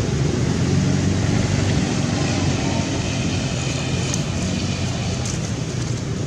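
A motor vehicle's engine running steadily, with a low hum over road traffic noise.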